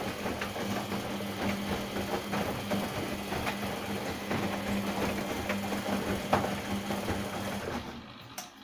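LG WD-80155NUP front-loading washing machine turning its drum mid-wash: a steady motor hum with light irregular knocks from the tumbling load, which stops fairly suddenly near the end as the drum pauses.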